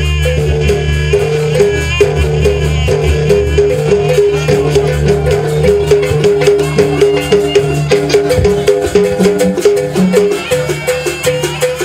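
Jaranan ensemble music played live: a kendang drum beating a busy, driving rhythm under small kettle gongs repeating a steady pattern of notes, with a higher wavering melody line above.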